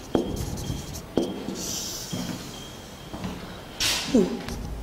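Marker pen writing on a whiteboard: a few taps and a squeaky, hissing stroke as a word is written. Near the end there is a short burst of breath noise and a brief voiced sound.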